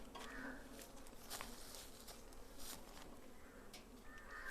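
Honeybees buzzing faintly around an opened hive, a low steady hum, with a few light clicks.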